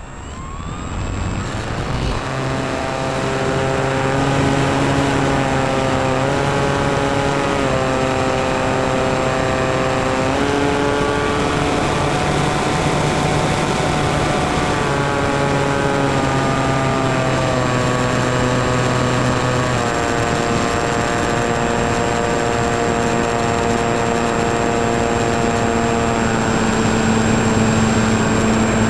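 Model airplane's motor and propeller heard through the plane's onboard camera: a steady droning whine with a rush of air. It builds over the first few seconds, then shifts up and down in pitch in steps as the throttle changes.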